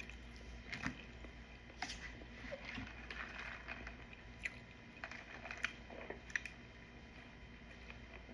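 Faint, close-up chewing and biting of food, with scattered short clicks and crunches about once a second.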